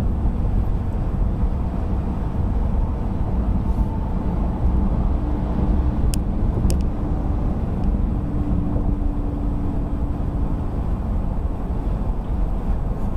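Steady road and engine rumble heard inside a car cruising on a freeway, recorded by its dashcam. A faint steady hum sits over it for several seconds in the middle, and there are two brief ticks about six seconds in.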